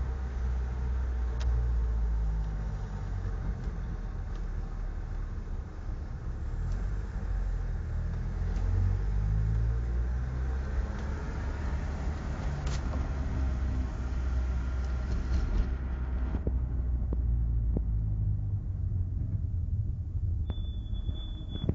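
Engine and road rumble of a Zeus sidecar outfit heard from its passenger seat while driving in traffic; it eases off about three quarters of the way through as the outfit slows to a stop. A brief high beep sounds near the end.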